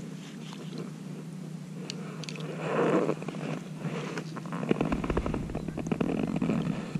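Close rustling and scraping of a sleeve and gloved hands moving a fishing pole among branches, starting about three seconds in and busiest in the second half, over a steady low hum.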